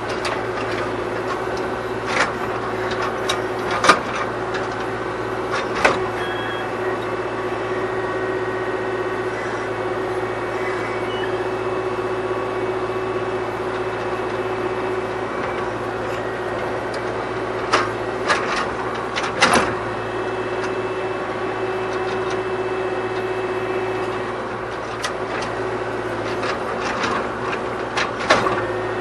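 Kubota KX040 mini excavator's diesel engine running steadily under digging load, with scattered sharp knocks and scrapes as the bucket works into hard, compact soil.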